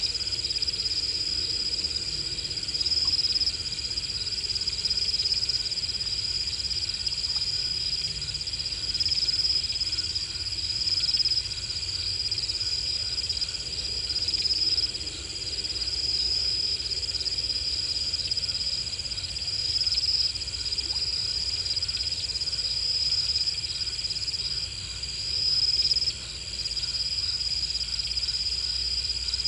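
Night chorus of crickets: a steady, high-pitched trill that swells in short louder stretches every second or two.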